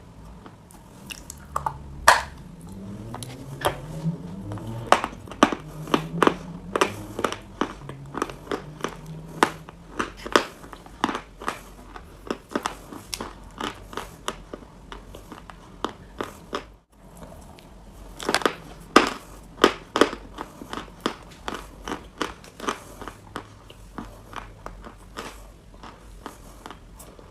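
Close-up biting and chewing of crumbly chalk: a steady run of sharp, dry crunches, several a second, with a brief dropout partway through.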